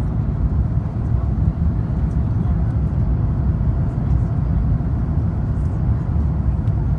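Steady low cabin rumble inside an Airbus A350-900 on final approach with its flaps extended: engine and airflow noise heard from a window seat over the wing.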